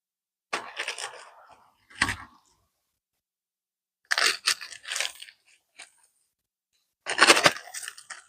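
Four bursts of crinkling, tearing handling noise, with a short thump about two seconds in.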